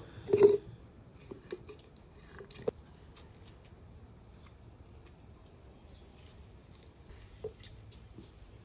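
A lime half squeezed by hand and reamed with a metal spoon over a plastic blender cup: faint squishing with a few small spoon clicks. There is a short soft thud just after the start.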